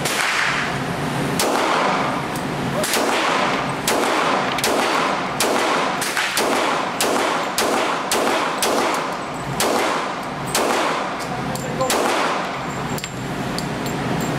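Glock pistol fired in a long string of shots, about two a second with short pauses, each shot echoing off the walls of an indoor range.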